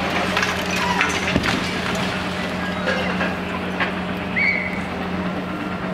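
Demolition excavator's diesel engine running steadily while its arm breaks into a concrete apartment block, with scattered knocks and clatter of breaking concrete and falling debris. A brief high squeak comes about four and a half seconds in.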